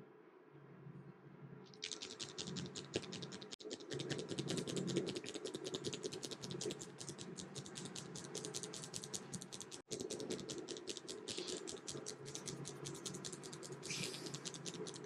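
Massage hands working rapidly on the scalp and hair: a fast, even run of crisp crackling taps. It starts about two seconds in, breaks off for an instant twice, and stops abruptly at the end.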